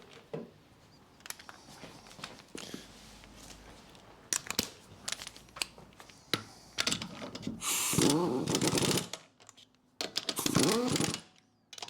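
Metal clicks and knocks, then from about seven seconds in a power tool runs in bursts, its pitch rising and falling, as the wheel nuts are run on while the front wheel is refitted.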